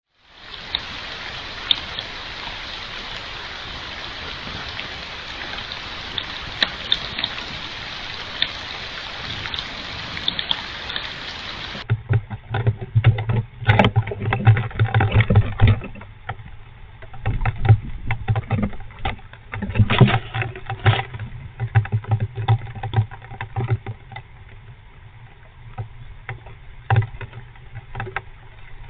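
Heavy rain falling as a steady hiss for about the first twelve seconds. Then comes irregular scratching and rustling from a fox squirrel moving and grooming inside a nest box, over a low steady hum.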